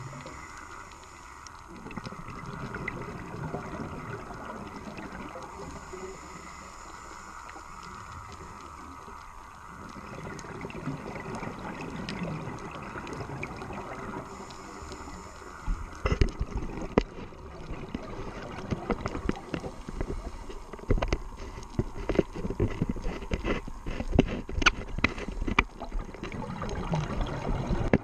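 Underwater sound of a scuba dive, muffled by the camera's waterproof housing: a steady low hiss, then from about halfway a rapid, irregular run of knocks and crackles, loudest near the end, as the diver exhales bubbles through his regulator.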